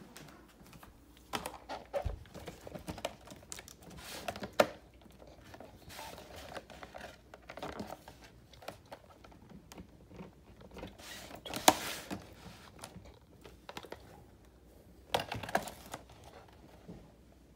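Stiff plastic blister packs of tool sets being handled on a wooden floor: irregular crinkling of the clear plastic with taps and clicks, louder crackles about twelve seconds in and again near the end.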